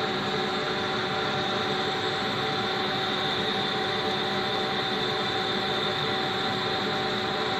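Laser cutter running as it cuts small squares out of a thin wooden sheet. It makes a steady whir with a constant high whine over it.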